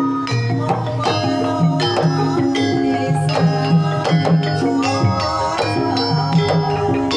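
Javanese gamelan music: struck metal instruments ringing in a steady rhythm over repeated low hand-drum strokes.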